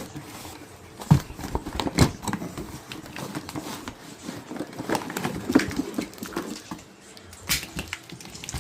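Rustling and sharp clicks of a wiring harness and its packing paper being handled and unpacked, with the loudest knocks about a second in, two seconds in and near the end.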